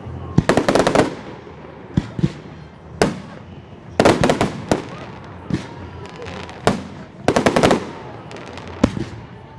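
Fireworks salute going off: three dense clusters of rapid bangs and crackles, about half a second to a second each, with single sharp bangs between them.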